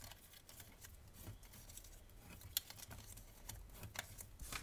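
Designer paper being handled and its folds creased again by hand: faint rustling with a few light, sharp clicks.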